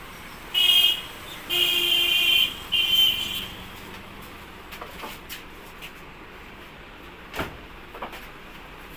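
Vehicle horn honking three times in quick succession: a short blast, a longer one of about a second, then a short one. A few light clicks follow, one of them sharper.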